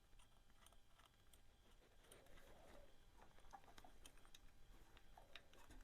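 Near silence, with a few faint small clicks of a valve inspection cap and tools being handled on a motorcycle engine.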